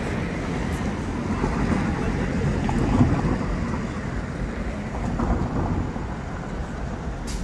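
City street traffic at an intersection: cars passing with a steady low rumble that swells about three seconds in, with wind buffeting the microphone.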